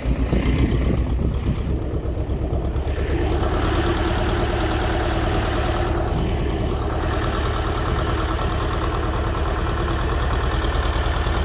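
Tractor engine running steadily as it pulls a potato planter across the field.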